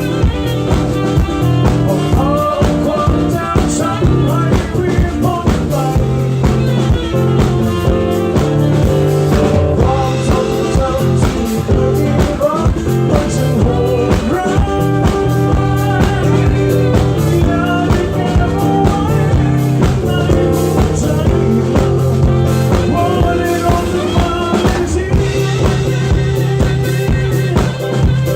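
Instrumental rock-band music with a steady drum-kit beat and no sung words.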